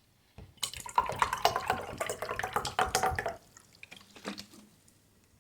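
Water splashing and trickling in a dense patter for about three seconds, then stopping, with a few faint drops afterwards.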